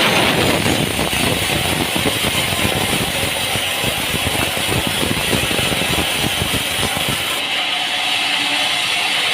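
Machinery clattering with a rapid run of clicks and rattles, which changes to a steadier running sound about seven seconds in.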